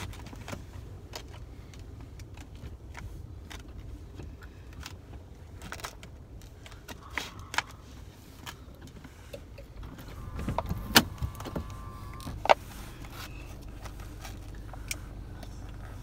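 Plastic retail packaging being handled and cut open with a knife: scattered clicks and crackles, a short wavering squeal, and two sharp snaps about two-thirds of the way through, over the low steady hum of a car interior.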